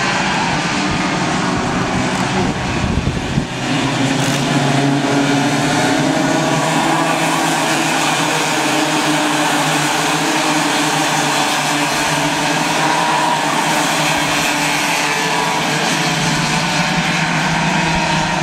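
A pack of Raket-class racing karts running at race speed, their small two-stroke engines droning together in several overlapping notes that rise and fall slightly as the karts accelerate and lift through the corners.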